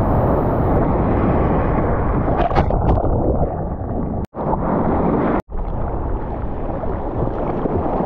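Muffled, steady rushing of wind and sea water on the microphone, a dull low rumble with little treble. It cuts out for an instant twice, a little past the middle.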